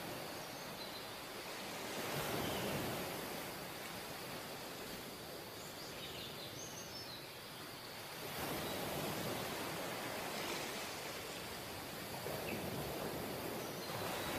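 Sea surf breaking and washing up a sandy beach: a steady rush that swells three times as waves come in.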